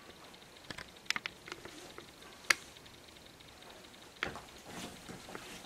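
Scattered faint scuffs and knocks of shoes being pulled on and footsteps on a bare floor, with one sharper click about two and a half seconds in and a duller thump near four seconds.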